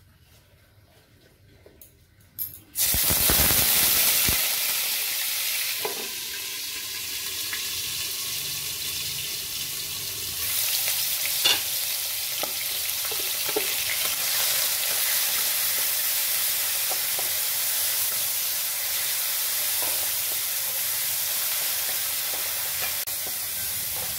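Ground onion paste frying in hot oil in a wok: a loud sizzle starts suddenly about three seconds in as the paste goes into the oil and keeps going, with a few knocks of a wooden spatula as it is stirred.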